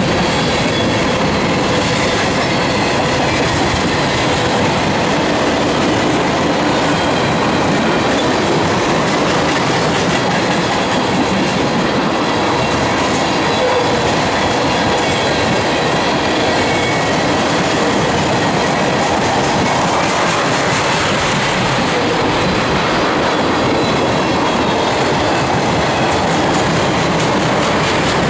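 Tank cars of a Norfolk Southern manifest freight train rolling steadily past, their steel wheels rumbling and clattering over the rails.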